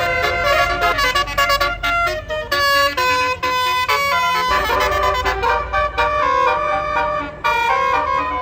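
Bus telolet 'basuri' horn playing a quick melody of short, stepping tones over a low engine rumble.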